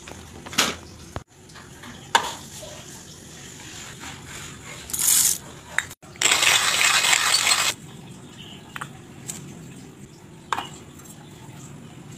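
Manual coffee grinder crunching beans for about a second and a half near the middle, among scattered clicks and clinks of coffee gear set down on a counter.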